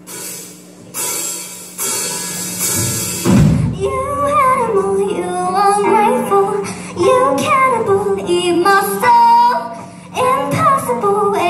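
Student rock band playing live: a bright cymbal wash for the first few seconds and a heavy hit from the drums and bass about three and a half seconds in, then a girl sings the lead over the band. A steady low hum sits underneath.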